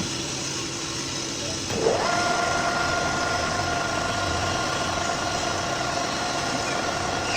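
A machine's motor spins up about two seconds in, its pitch rising quickly, then runs with a steady whine over the constant workshop noise.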